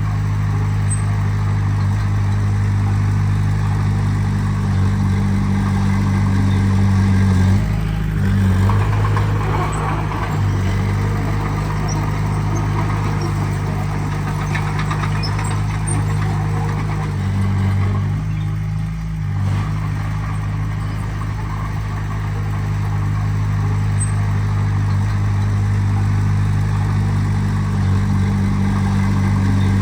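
Heavy diesel engine of earthmoving machinery running steadily. Its engine note shifts briefly a few times as the load or revs change.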